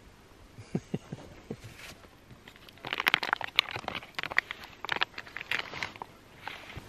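A few soft knocks, then from about three seconds in a dense run of crinkling and crackling for about three seconds as a Gilde Turmat foil trail-meal pouch is handled and stirred with a spoon.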